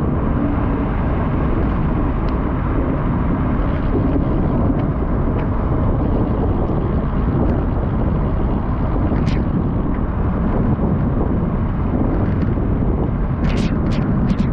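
Steady rushing noise of wind buffeting the microphone, heaviest in the low end, with a few brief sharp clicks near the end.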